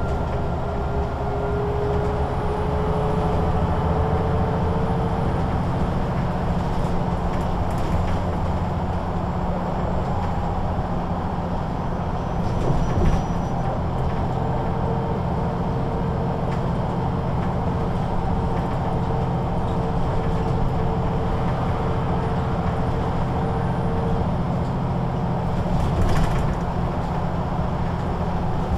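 MAN NG 313 articulated bus with a Voith automatic gearbox, its diesel engine droning steadily while the bus is under way, with a whine that comes and goes. Two short knocks stand out, one about halfway through and one near the end.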